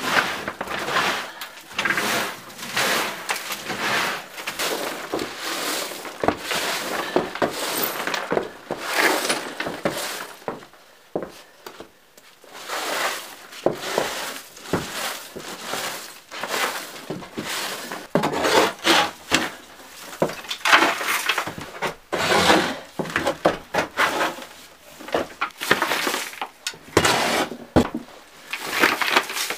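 Homemade twig broom, made from wild berry bushes, sweeping dry debris and grit across wooden floorboards in repeated scraping strokes, with a short lull before the strokes grow louder and closer together in the second half.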